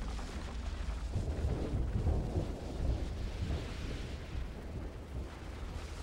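Deep rumbling of the Soufrière Hills volcano's unstable lava dome, swelling about a second in and easing off toward the end.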